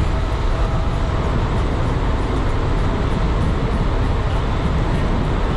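Wind rushing over the microphone of a handlebar-mounted camera, mixed with tyre hum on asphalt, as a bicycle descends a paved road at speed. The noise is steady and loud throughout.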